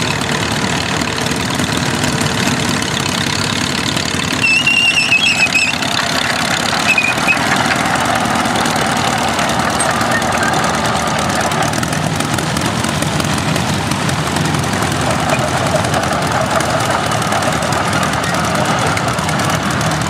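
1951 Oliver OC-3 crawler tractor's four-cylinder engine running steadily at low speed as the crawler drives slowly across grass.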